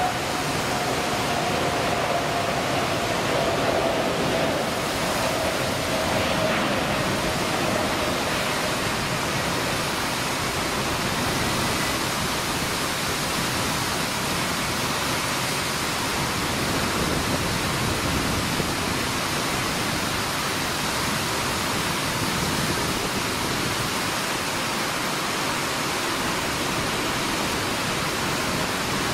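Air New Zealand Boeing 787-9's Rolls-Royce Trent 1000 engines at takeoff thrust: a steady roar with a faint whine that drops slightly in pitch and fades over the first several seconds, mixed with the hiss of heavy rain.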